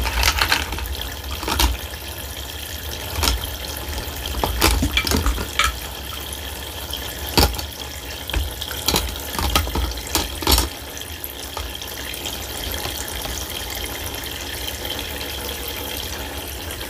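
Water running and splashing in a toy plastic kitchen sink as a hand washes in the basin. Sharp knocks and clatters, the kind plastic dishes make, come often during the first ten seconds or so, and then the sound settles to a steadier trickle.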